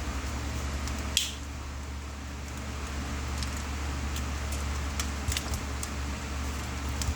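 Scattered small clicks and taps, with one sharper click about a second in, over a steady low hum.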